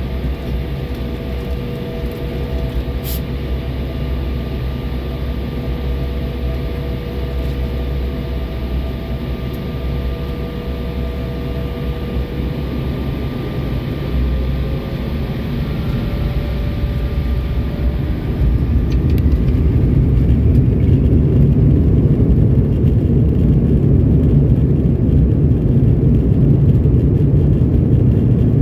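Cabin sound of an Embraer E175's twin General Electric CF34 turbofans: a steady whine and rumble while the jet rolls onto the runway, then the engines spool up with a rising tone just before halfway. About two-thirds through, the rumble grows louder as takeoff power is set for the takeoff roll.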